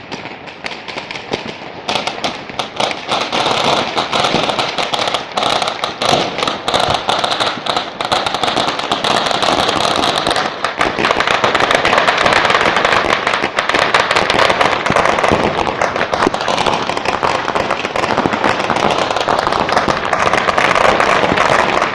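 Dense, continuous crackle and popping of many firecrackers and fireworks going off at once, thickening into an unbroken barrage about two seconds in.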